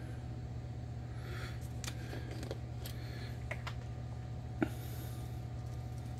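Light clicks and rattles from handling a plastic spice jar of ground cumin, with one sharper snap about four and a half seconds in as the cumin is shaken out into a palm. A steady low hum runs underneath.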